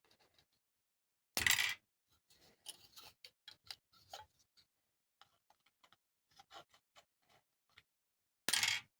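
Light clicks and taps of small 3D-printed plastic model parts being handled, with two louder short sharp clatters, one about a second and a half in and one near the end.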